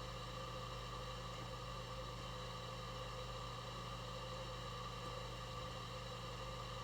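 A steady, quiet electronic drone made of several held tones over a low hum, unchanging throughout.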